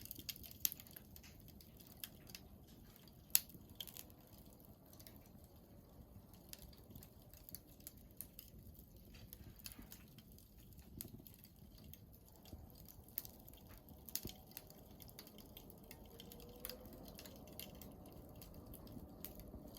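Burning firewood crackling, with faint irregular snaps and pops over a low hiss; a few pops are sharper than the rest.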